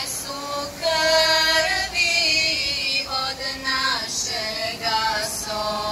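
Live singing of a Bosnian Islamic devotional song (ilahija): a sung melody in long, held notes that waver and glide in pitch, broken into short phrases.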